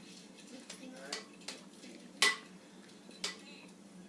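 A utensil stirring a wet egg, milk and cheese mixture in a bowl, clinking against the side several times; the loudest clink, about two seconds in, rings briefly.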